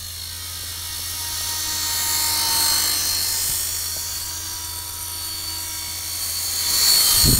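Radio-controlled Tiger Moth biplane's motor and propeller whining high-pitched as it flies by, getting louder, fading a little, then louder again near the end as it passes close.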